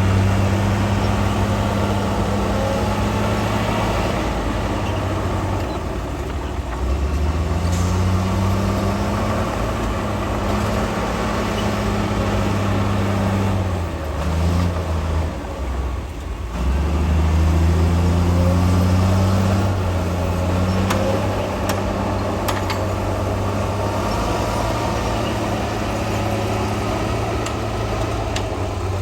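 Heavy diesel engine of earthmoving equipment running under work, its pitch falling and rising several times as the load changes. About halfway through it briefly drops off, then picks back up.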